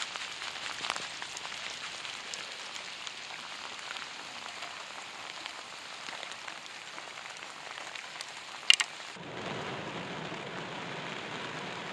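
Heavy rain falling in a steady hiss. A sharp knock comes near the end, and then the rain is heard from inside a car, duller, on the roof and windshield.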